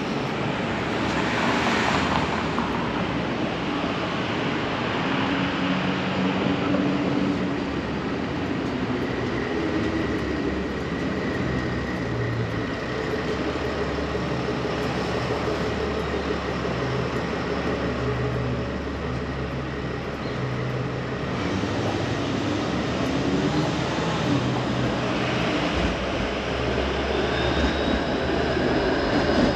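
Street traffic: steady vehicle noise with a low engine hum, and a brief swell of noise about two seconds in.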